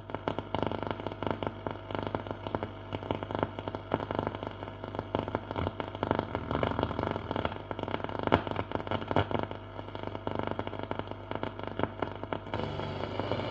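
Crackling static and interference from a 1939 Mende Super MS216-W radio's loudspeaker while it is tuned between stations, over a steady low hum. The sound changes near the end as a station starts to come in.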